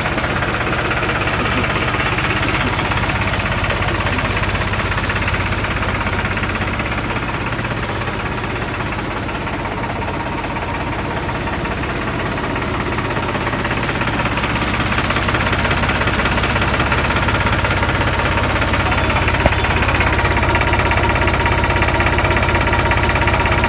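New Holland 3630 tractor's three-cylinder diesel engine running steadily at low revs, growing somewhat louder in the second half.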